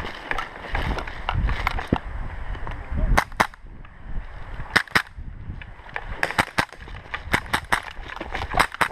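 Airsoft guns firing single shots: about a dozen sharp cracks in pairs and quick clusters, from about three seconds in, over a low rumble of players moving.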